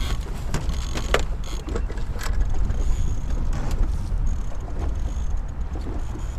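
Steady low rumble of a boat running, with wind on the microphone. Several sharp knocks and clicks come in the first couple of seconds, as a hooked muskie is being played from the boat.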